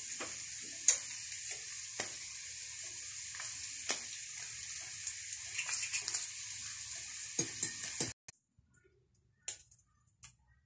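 Beef steaks sizzling in a frying pan: a steady hiss with scattered sharp pops and spits. It cuts off abruptly about eight seconds in, leaving only a few faint clicks.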